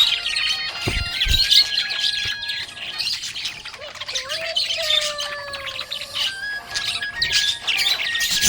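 Budgerigars chirping and warbling in a fast, busy, continuous chatter, with background music of long held notes underneath.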